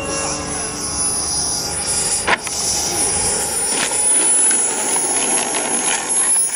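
Radio-controlled BAE Hawk scale model jet landing and rolling out on the runway. Its engine gives a steady high whine over a rushing hiss, with one sharp knock about two seconds in.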